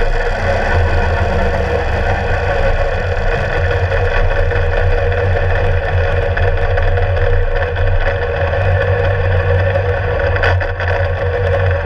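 Kawasaki Ninja sport bike's liquid-cooled 16-valve four-cylinder engine running at a steady cruise, heard close to its muffler along with road noise.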